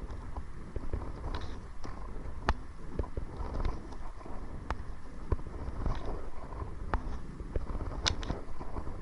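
Kayak paddling: irregular knocks and splashes from the paddle and hull, over a steady rumble of wind on the microphone.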